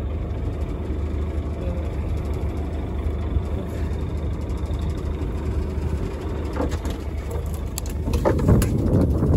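Fishing boat's engine idling, a steady low rumble, with a few sharp knocks and a louder rush of noise near the end.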